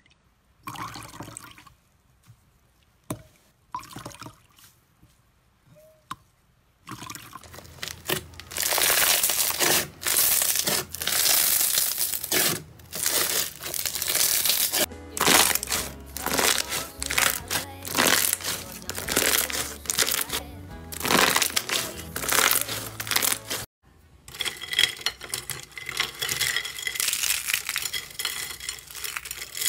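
Hands squeezing and pressing slime in a series of short clips. For the first several seconds there are only faint scattered clicks and pops. From about seven seconds in come dense, irregular crinkling and crackling squishes, broken by a brief gap near the end.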